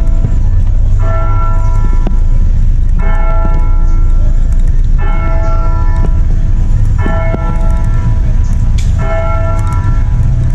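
Church bell tolling slowly, one stroke about every two seconds with each ring dying away within about a second, over a loud steady low rumble.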